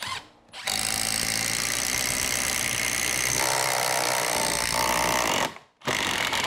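Milwaukee M12 Fuel cordless drill running at full speed, boring a 1/2-inch spade bit (Irwin Speedbor) through a 4x4 of weathered wood with a steady loud whirring. It drops out for a moment about five seconds in, then runs on. The bit bores through quickly.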